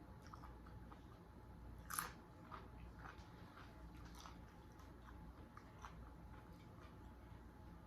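Close-up chewing and crunching of tortilla-chip nachos, with one louder crunchy bite about two seconds in and fainter crackles of chewing after it.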